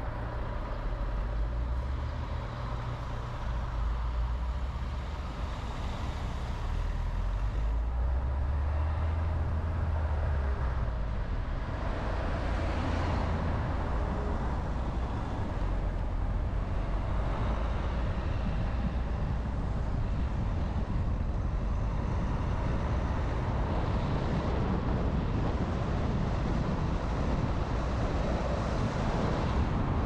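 A car driving on the road: a low engine hum under steady tyre and road noise. The hum shifts pitch in the first ten seconds or so, then runs steadily as the car gathers speed.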